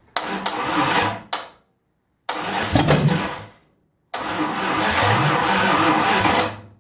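A Chrysler 360 V8 being cranked on its starter in three tries, a short one, a shorter one and a longer one of about two and a half seconds, each stopping abruptly. It turns over without firing, a no-start caused by the electric choke being set fully on.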